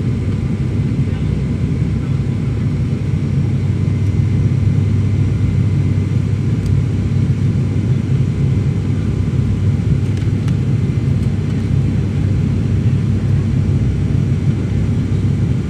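Steady low drone of an ATR 72 turboprop's engines and propellers heard inside the cabin, with a few faint steady tones above it.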